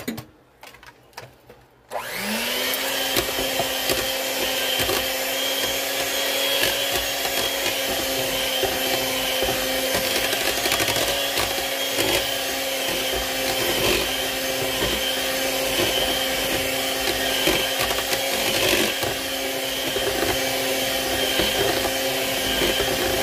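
Electric hand mixer starting up about two seconds in, with a quick rise in pitch, then running at a steady whine as its beaters mix oil into thick chocolate cake batter. A few light handling clicks come before it starts.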